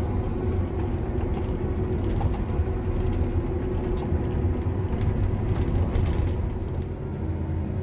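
Heavy vehicle engine running steadily, a low rumble with a steady hum over it; the higher part of the noise eases slightly near the end.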